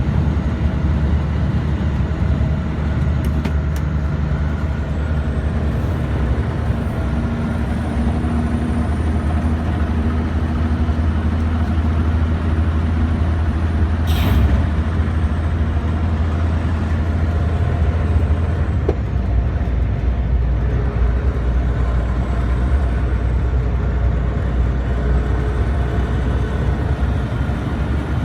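Renault Magnum 430's 12-litre Mack E7 inline-six turbo diesel pulling under way, with a faint high turbo whistle rising and falling over it. About halfway through there is a brief hiss of compressed air, and the engine note changes a few seconds later.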